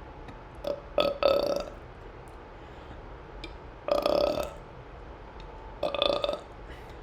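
A person burping four times: a short burp about a second in, then three longer burps spaced about two to two and a half seconds apart.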